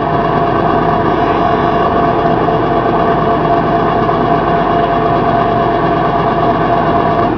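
Loud, steady electronic noise drone from circuit-bent equipment played over a speaker, several held tones over a dense rumbling wash, with no beat or melody.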